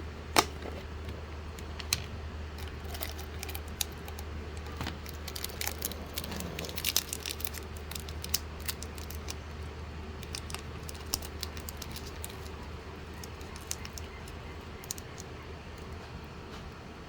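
Cough drops and their packaging being handled: scattered sharp clicks, rattles and crinkles, busiest around the middle, over a steady low hum.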